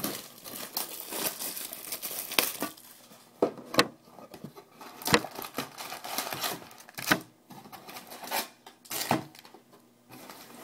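Foil trading-card packs crinkling and rustling as they are handled and pulled out of a cardboard card box, with scattered sharp clicks and taps.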